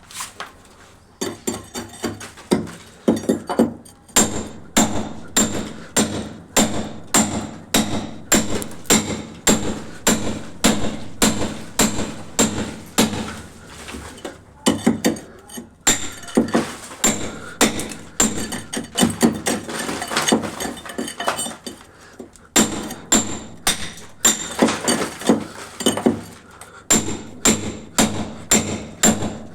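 Repeated hammer blows at about two a second, each with a short high ring, pausing briefly twice.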